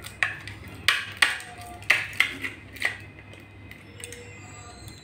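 Aluminium foil crinkling as it is pinched and folded around a plastic kulfi mould: about six sharp crackles in the first three seconds, then only faint handling.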